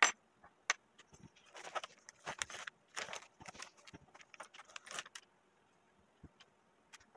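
Small metallic clicks, taps and short scrapes from a thin metering cover being handled and seated over the diaphragm on a Zama C1U carburetor body. The sharpest click comes right at the start, followed by scattered clicks and brief clusters of scraping.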